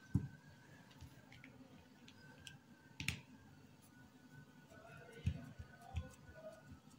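Hands patting and pressing yeast dough flat into a metal ring mould on a stone worktop: a few dull thumps and one sharper click about three seconds in.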